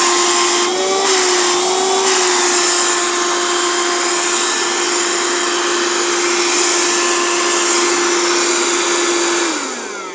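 Handheld cordless car vacuum cleaner's motor running with a steady whine, then winding down near the end as it is switched off.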